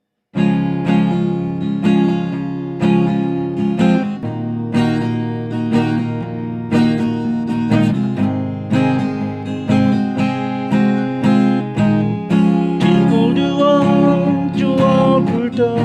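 Acoustic guitar strummed in a steady rhythm, starting about a quarter second in. Near the end a higher, wavering melody line joins the chords.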